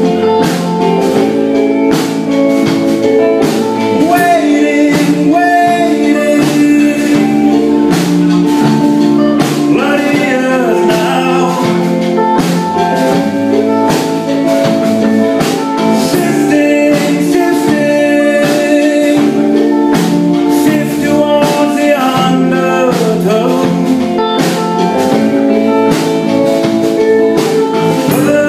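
Live rock band playing: a man singing over electric guitars and a drum kit, with steady drum beats under sustained guitar chords.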